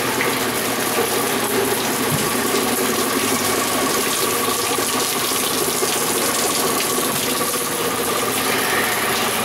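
Water running and splashing steadily together with a mechanical, pump-like running noise, from a themed water-purification contraption on a jungle boat ride.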